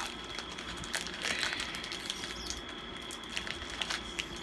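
Crinkling and crackling of a snack packet's plastic wrapper being handled and opened by hand, in scattered crackles with a denser rustle about a second in.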